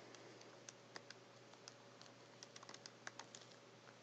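Faint, irregular clicks of keys being pressed, a few scattered taps with short pauses between them, over a faint steady hum.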